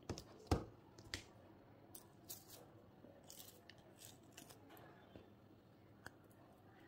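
Cured resin pieces knocking against a wooden tabletop, the loudest a sharp knock about half a second in. Then a soft silicone mold is flexed and peeled off a cured resin druzy piece, with a few short scratchy peeling sounds and a final click.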